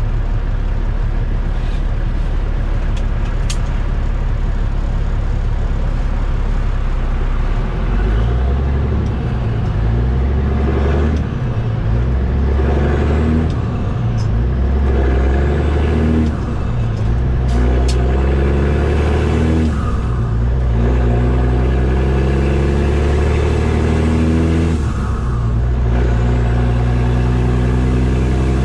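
Caterpillar C15 diesel of a Kenworth T800 tractor working under a heavy lowboy load, heard from inside the cab: a steady low rumble, then from about eight seconds in the engine pulls up through the gears of its 10-speed manual transmission, its note climbing and dipping briefly at each upshift, about every four to five seconds.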